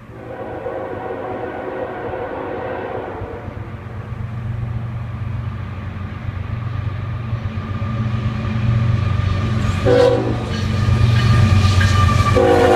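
Norfolk Southern diesel locomotive's air horn sounding for a grade crossing: a long blast at the start, a short blast about ten seconds in, and another blast starting near the end. Underneath, the diesel engines' rumble grows louder as the train approaches.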